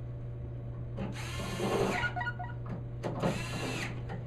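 Power drill run in two short bursts of about a second each, spinning up and winding down, over a steady low hum.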